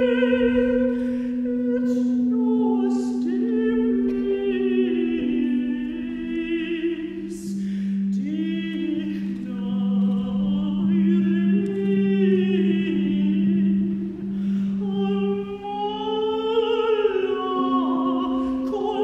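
A contralto sings a slow, sustained chant melody over a held low cello drone. The drone drops to a lower note about six seconds in and comes back up near the end.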